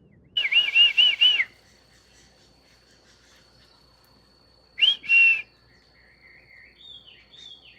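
Birds calling in whistled notes: a quick run of about four rising-and-falling whistles near the start, then two more notes about five seconds in, with faint warbling near the end.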